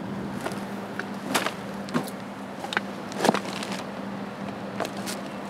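Footsteps and handling on fly-tipped rubbish: about seven sharp cracks and crunches spaced irregularly, the loudest a little past three seconds in, over a steady low hum.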